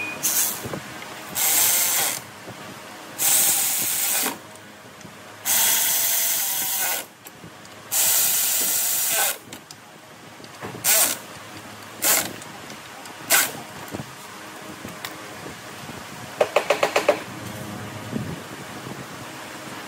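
A power tool run in repeated bursts while a starter motor is being removed or fitted: four longer bursts of a second or more each, then three short ones. Near the end comes a quick run of about eight clicks.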